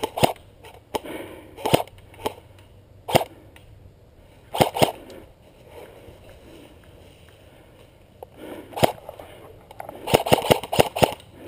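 Airsoft gunfire: sharp single shots spaced roughly a second apart, then a quick string of shots near the end.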